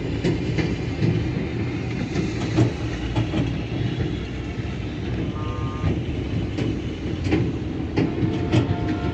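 Steady rumble of passing motor traffic, with scattered clattering knocks and two short horn toots, the first about halfway through and the second near the end.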